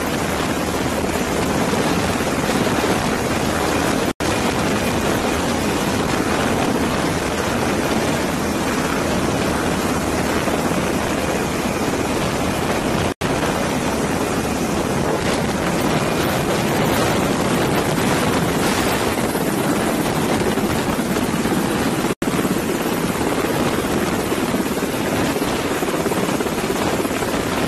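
Helicopter hovering low directly overhead and lifting an underslung cargo load, heard as a loud, steady rush of rotor downwash and engine noise. The sound drops out for an instant three times.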